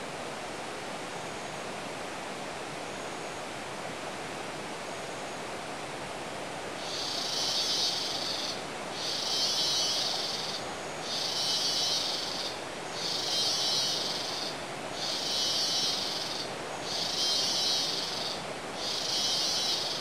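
Rainforest background with a steady rushing hiss. From about a third of the way in, a high, rasping buzz repeats seven times, each a little over a second long and about two seconds apart.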